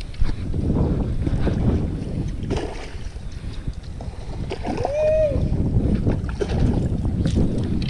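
Wind buffeting the microphone and water slapping against a plastic kayak's hull, with light knocks from handling a fishing rod and reel. About five seconds in, a short high call rises and falls once.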